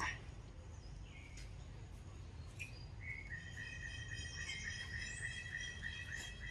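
Outdoor ambience over a steady low rumble: a sharp click at the start, a few short chirps, then from about three seconds in a steady high-pitched trill that carries on.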